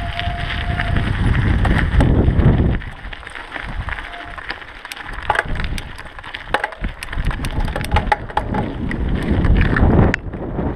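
Mountain bike rolling over a rough gravel track: tyres crunching on loose stones, with scattered clicks and rattles from the bike and wind buffeting the camera microphone. The wind rumble drops about three seconds in and picks up again near the end.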